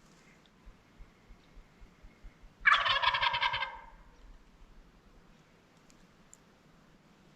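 Wild turkey jake gobbling once at close range, a loud rattling call about a second long, nearly three seconds in.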